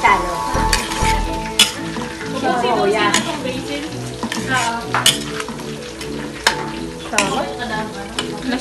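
Meat and vegetables sizzling in a metal wok while a metal spatula stirs and scrapes them, with scattered sharp clinks of the spatula against the pan.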